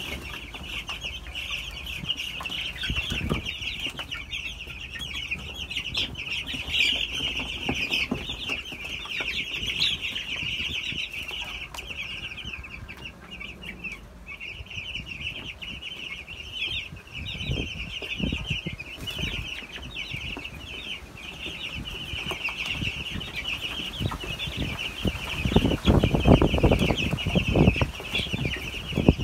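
A flock of eleven-day-old broiler chicks peeping without pause, a dense chorus of high chirps. Near the end, louder low thumps and rumbling come in under the peeping.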